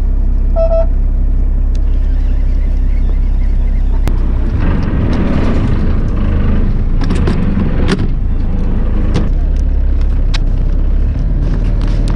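A fishing boat's engine runs with a steady low hum. Clicks and rustling from handling fishing gear come through the middle, and a short beep sounds about half a second in.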